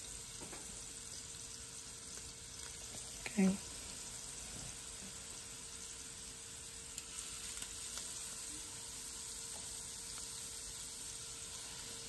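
Seasoned chicken thighs searing skin-side down in hot oil in a frying pan: a steady sizzle.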